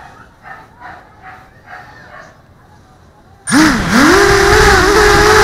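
A mini FPV quadcopter's motors and propellers spin up from rest about three and a half seconds in. It is a sudden loud whine that dips and then climbs in pitch as the throttle comes up for takeoff. Before that, only a few faint short sounds repeat about twice a second.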